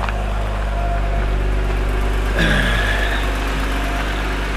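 Jeep engine and road noise while driving, a steady low drone. About halfway through, the engine note slides down, as when the revs drop.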